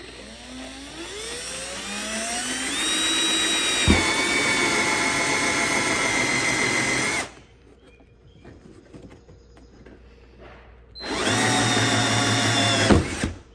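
Power drill boring holes for parking sensors through the plastic rear bumper cover. It spins up in a rising whine over about three seconds, runs steadily and stops. It runs again briefly near the end, finishing with a sharp knock.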